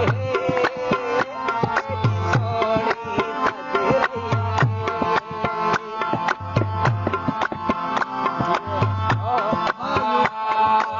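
Instrumental folk music: hand drums play a fast rhythm with a deep stroke about every two seconds, under a held melodic line.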